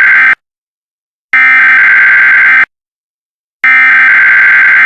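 Emergency Alert System SAME header, the digital data burst that opens an alert, sounding as a harsh, loud buzzing. The first burst ends just after the start, and two more follow, each a little over a second long with about a second of silence between them.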